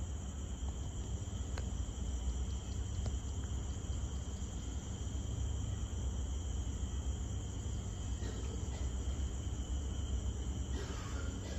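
Crickets and other night insects trilling steadily in a high, continuous chorus over a low steady rumble, with a brief louder noise near the end.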